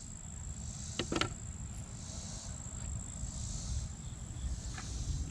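Crickets trilling, a steady high-pitched tone, with two sharp clicks about a second in.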